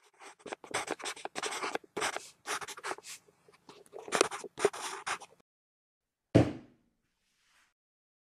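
Felt-tip marker drawn across a paper map: a quick run of short scratchy strokes and dabs for about five seconds. A single sharp thump follows about a second later and is the loudest sound.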